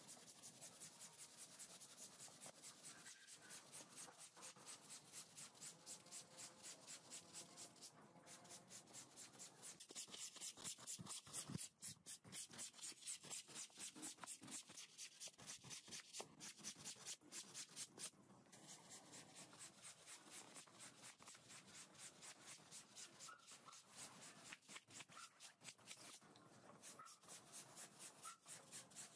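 Long-handled stiff-bristled scrub brush scrubbing a wet, soapy rug in quick back-and-forth strokes, about three a second; a faint rhythmic swishing and scratching that grows a little louder in the middle stretch.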